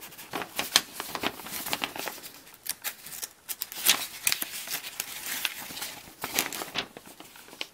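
Paper instruction sheets rustling and crinkling as they are handled, turned and folded: a busy run of short, sharp paper crackles and rustles.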